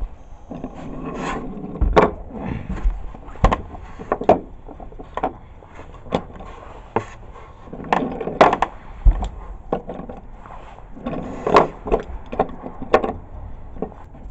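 Wooden toy train car rolling along a track of loose wooden slats, its wheels rumbling over the wood with many sharp knocks and clacks at uneven intervals.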